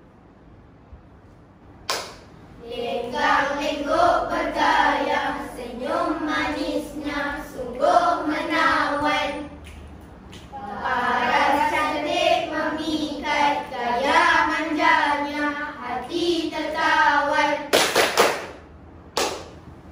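A children's group chanting and singing in unison, with held sung notes, starting about two seconds in. Near the end come a couple of sharp hand claps.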